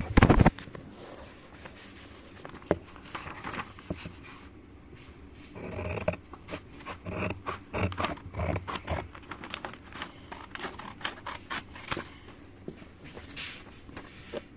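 Scissors snipping through paper and the sheet rustling and scraping as it is cut and handled, with a loud knock right at the start and a busy run of clicks and rustles in the middle.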